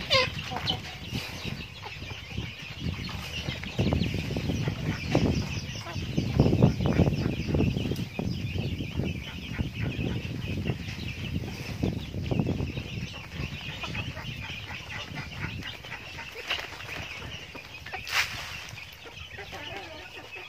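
A small flock of chickens, hens with chicks, clucking and peeping continuously as they peck feed off a plastic tarp, with many light taps of beaks on the tarp.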